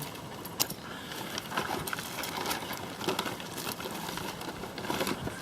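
Hands rummaging through a container of small loose items, with irregular rustling and sharp little clicks and knocks as things are pushed aside. The sharpest click comes about half a second in.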